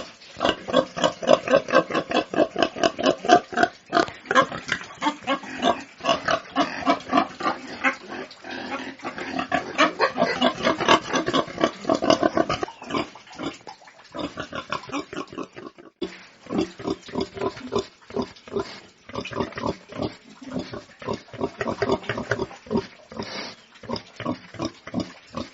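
Pigs grunting and squealing in a quick run of short calls, several a second. About two-thirds of the way through the sound cuts to another recording, where the calls are lower-pitched.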